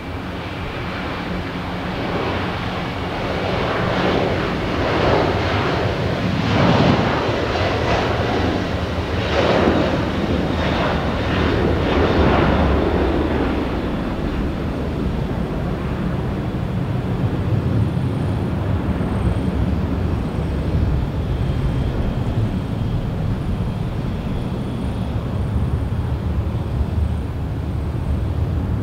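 Jet airliner's engines at takeoff power: a loud rushing roar that builds over the first few seconds and pulses with crackling surges between about 4 and 13 seconds in, then eases to a steady low rumble.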